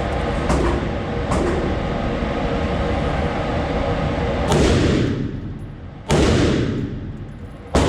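Select-fire machine gun fired on semi-auto: three single shots about a second and a half apart, each with a long echoing decay, after a few seconds of steady background noise.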